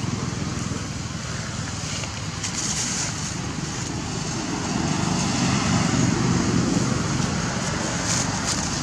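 Steady outdoor background noise, a low rumble with hiss, growing a little louder about halfway through; no calls from the monkeys stand out.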